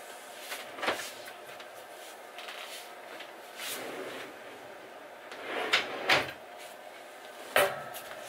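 Plywood kitchen drawer cabinet being handled and shifted into place, giving several sharp wooden knocks and bumps: one about a second in, two close together around six seconds in, and one more near the end.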